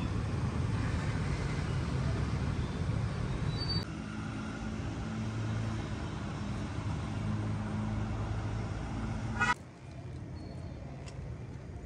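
Road traffic with a vehicle engine running steadily, a low drone that holds for several seconds. About nine and a half seconds in, the sound cuts off abruptly to a quieter background with a few clicks.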